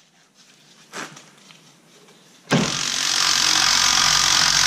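A single light knock about a second in, then from about two and a half seconds a loud, steady mechanical noise that starts suddenly. It comes from the scissor transmission jack raising the CVT up toward the engine.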